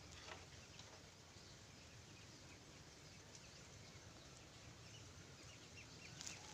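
Near silence: faint outdoor ambience with a few soft clicks and short, faint high chirps.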